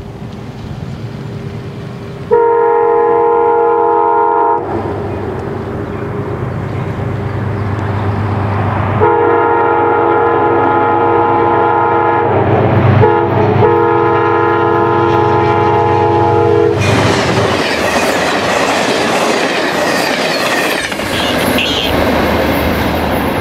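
Amtrak GE Genesis P32AC-DM locomotive's air horn sounding three blasts as the train approaches at speed: one of about two seconds, then two longer ones almost back to back, over the low hum of the engine. After the last blast the loud, even noise of the train passing takes over, with wheel clatter.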